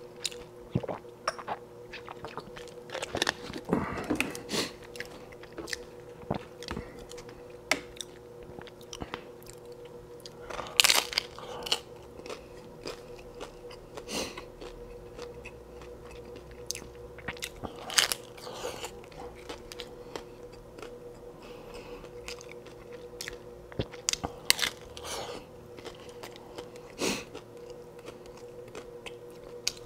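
Crisp corn hard-shell tacos being bitten and chewed up close on a clip-on microphone: repeated crackling crunches of the shell with wet chewing between them, the loudest bites about 11 and 18 seconds in. A faint steady hum runs underneath.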